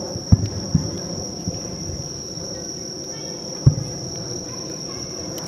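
Distant fireworks shells bursting as low booms: two close together in the first second and one more near four seconds in. Under them runs a steady high insect trill.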